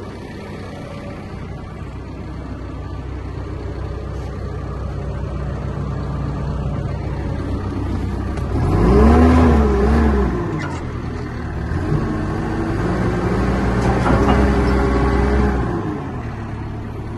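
Cat diesel engine of a 2019 Cat 420F2 IT backhoe loader running, revving up and back down about 9 seconds in and again, held longer, from about 12 to 16 seconds in.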